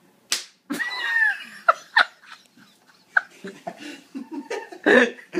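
A wooden spoon smacks once against a man's cheek, a sharp slap just after the start, followed by a pained yell and then laughter.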